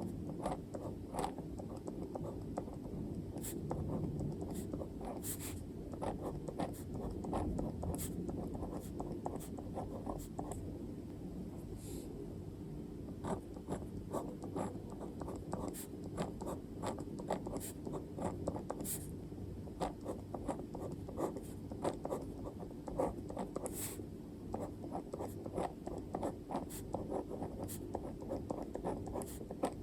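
Close-up handwriting on paper: a writing tool scratches across the page in quick short strokes, with frequent sharp ticks.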